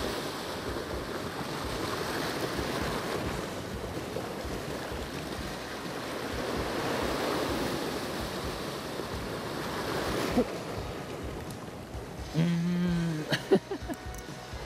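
Sea waves washing against a rocky shore, a steady rush of surf with wind that swells in the middle and eases again. A single sharp click stands out about ten seconds in.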